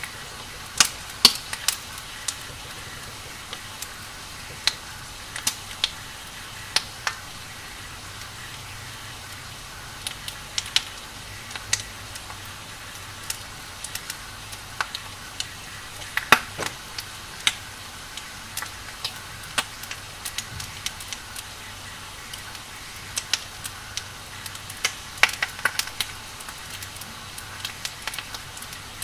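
Burning firewood crackling: irregular sharp pops and snaps over a steady hiss.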